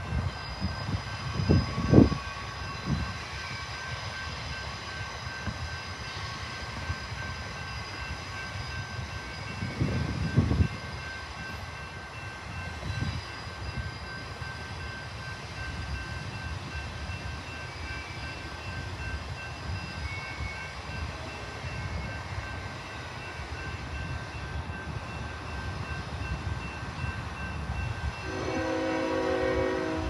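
Rumble of a freight train out of sight, with faint steady high whines over it and a few low buffets about 2 and 10 seconds in. Near the end a locomotive's multi-note air horn sounds for about two seconds.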